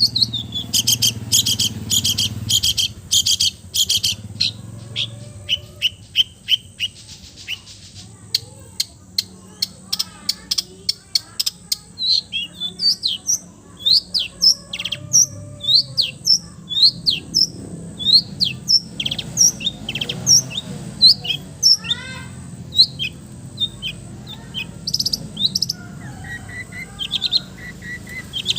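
Long-tailed shrike (cendet) singing a busy mimicking song. It opens with a fast run of sharp, high chirps, then moves into a long string of short, quick whistled notes. A steady low hum runs underneath.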